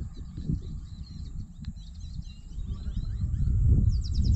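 Wind buffeting the microphone as an uneven low rumble that grows stronger after about three seconds, with birds chirping in the background and a quick run of chirps near the end.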